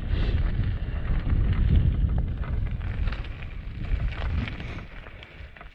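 Wind buffeting the microphone of a bike-mounted camera, with gravel crackling and ticking under mountain bike tyres on a fire road; the rumble eases in the last second or so.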